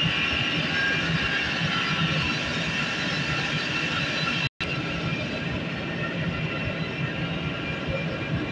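Steady mechanical hum and high whine of large water-cooled YORK chillers running in a plant room. The sound cuts out for a moment about halfway, then goes on a little quieter with less of the whine.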